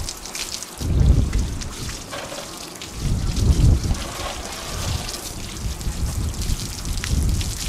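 Water from a garden hose splashing onto salted mullet roe on wooden racks and dripping through them, a steady hiss with many small patters, as the salt is rinsed off the roe. Heavy low rumbles come about a second in and again around three to four seconds in.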